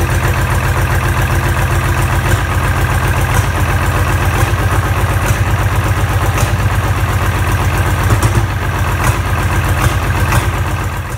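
Tractor diesel engine idling steadily with an even beat, blowing out through a vertical exhaust stack.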